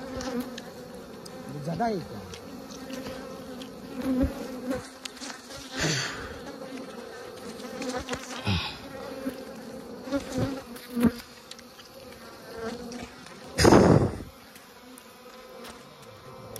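A swarm of wild honeybees buzzing in a steady hum, with scattered short rustles and knocks. A loud, brief rustle comes near the end.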